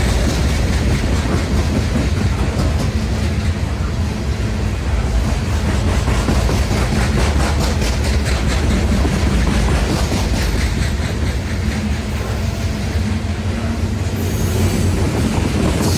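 Loaded unit coal train rolling past: a steady low rumble with the steel wheels clicking rhythmically over the rail joints.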